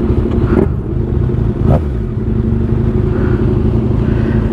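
Motorcycle engine idling steadily. Partway through, a short sound drops quickly in pitch.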